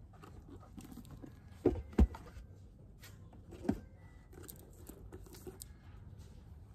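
Paperback books being handled: pages rustling as they are leafed through, with two sharp knocks close together about two seconds in and a softer one about a second and a half later as books are taken from and put back on the shelf.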